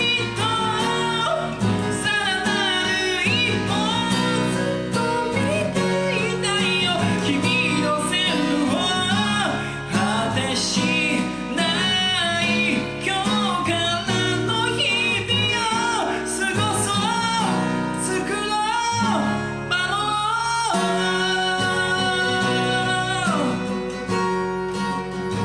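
A solo singer singing a Japanese rock song in Japanese while playing guitar, with a long held note near the end as the song draws to its close.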